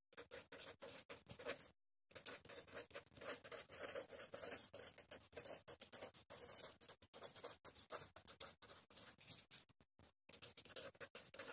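Faint scratching of a pen writing on paper: short strokes in quick succession, pausing briefly about two seconds in and again about ten seconds in.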